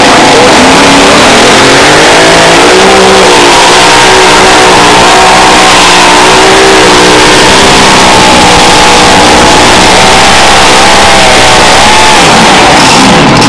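Mini rod pulling tractor's engine at full throttle, very loud, pulling the weight-transfer sled. The revs climb over the first few seconds, hold high and steady through the pull, then drop near the end.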